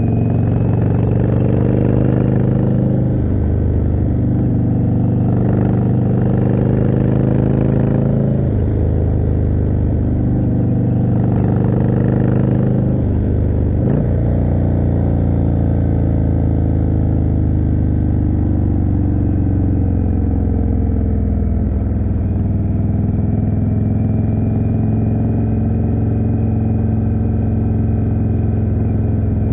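Indian Chieftain's 1811 cc V-twin running through a Jekill & Hyde exhaust while the bike is ridden. The engine note drops and rises again several times in the first half, then holds a steady cruising note.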